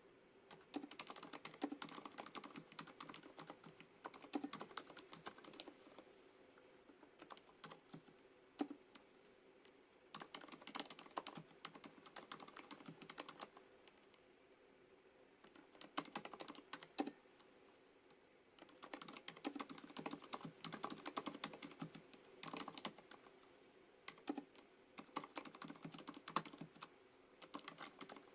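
Typing on a FILCO Majestouch MINILA-R Convertible mechanical keyboard with Cherry MX Silent (dampened) switches: soft, muted keystrokes in fast runs broken by short pauses, with an occasional louder stroke.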